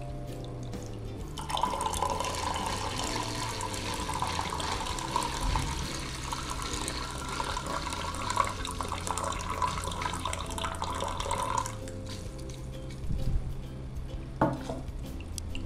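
Water pouring and splashing into an aquarium for about ten seconds, then stopping suddenly, as a hang-on filter is primed so its pump doesn't run dry.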